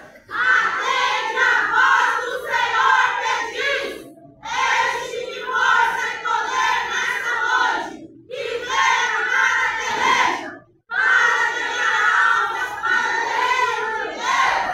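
A group of women's voices reciting a jogral in unison, loud and declaimed, in long phrases broken by three short pauses.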